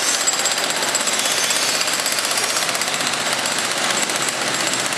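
Pneumatic jackhammer at roadworks, hammering steadily in a very rapid, even rhythm without a break.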